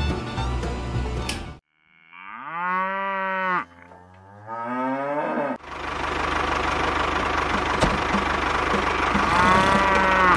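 A cow moos: one long call about two seconds in, its pitch rising and then falling, followed by a lower, weaker call. From about halfway a steady engine sound runs, with one more short moo near the end.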